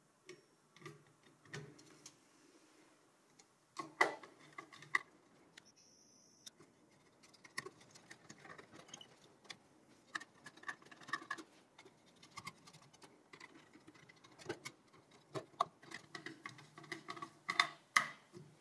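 Server CPU heatsink being seated on a motherboard and its mounting screws turned down with a screwdriver: scattered small metal clicks and scrapes, the loudest about four seconds in and again near the end.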